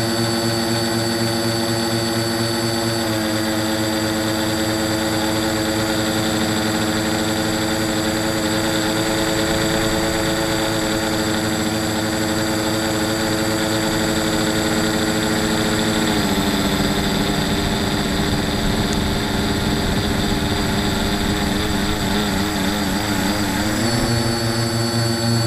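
Tricopter's brushless motors and propellers, heard from its onboard camera: a steady whine of several tones over a rush of wind. The pitch steps down about three seconds in, drops further about sixteen seconds in with a wavering beat between the motors, and rises again near the end.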